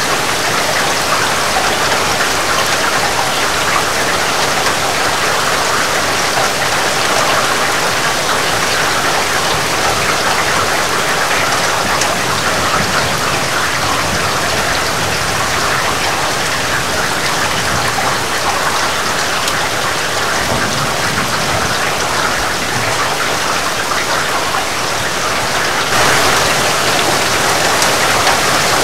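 Heavy rain falling steadily, a dense even hiss of drops on surfaces. Near the end it suddenly grows louder and brighter, closer to a rush of running water.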